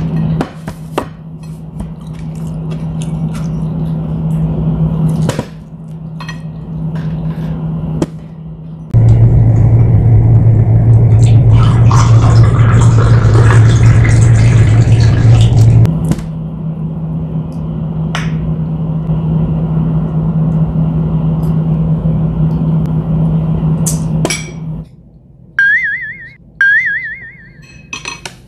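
Water poured from a plastic bottle into a drinking glass, a hissing splash about halfway through, over a steady low mechanical hum that drops in pitch and grows louder in the middle. Sharp clicks of chopsticks and dishes come now and then.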